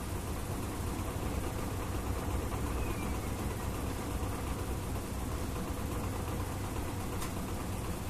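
Aquarium filter motor running: a steady low hum with an even hiss over it, and a single faint click near the end.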